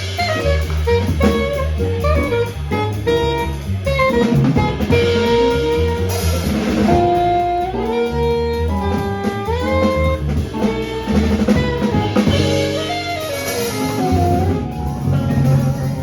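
Live jazz quartet playing: a saxophone carries the melody over piano, bass and drum kit.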